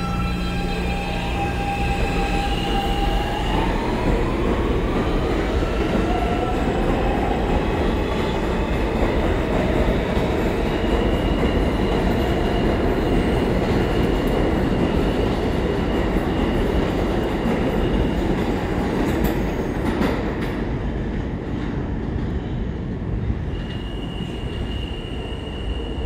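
Siemens-propulsion R160 subway train pulling out of the station. The traction motors give a whine that climbs in pitch in steps as the train accelerates, then the steel wheels rumble on the rails with a thin high squeal as the cars pass. The sound eases off over the last few seconds as the train leaves.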